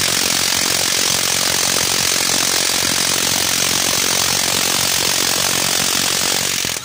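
Electric impact wrench hammering steadily on an engine bolt in a rapid rattle, stopping abruptly near the end.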